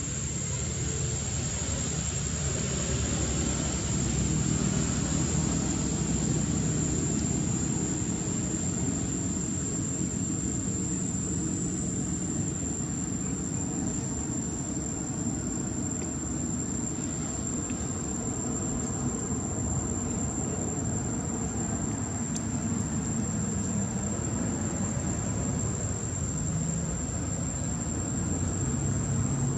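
Steady high-pitched insect trill, with a low continuous rumble beneath it.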